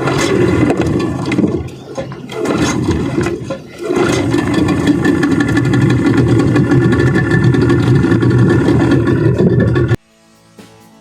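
Boat engine running loudly with a steady pitch, easing off twice in the first few seconds and then holding steady; it cuts off abruptly about a second before the end.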